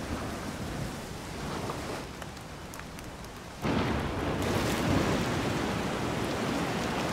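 Storm weather: steady rain and wind with a low rumble. About halfway through it jumps suddenly louder and fuller.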